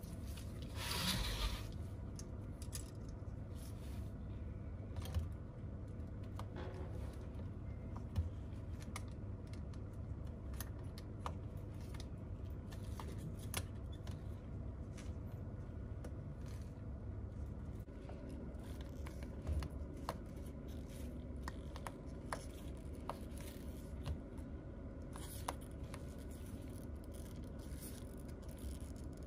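Small metal repair tools and gloved fingers clicking and scraping against the parts of an opened iPad Pro, with a brief scraping rustle about a second in and scattered light ticks after it, over a steady low hum.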